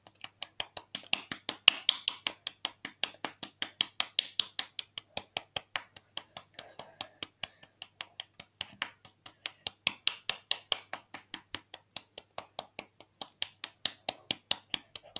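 An open hand rapidly slapping a cheek, several sharp slaps a second in a steady run, a little softer around the middle.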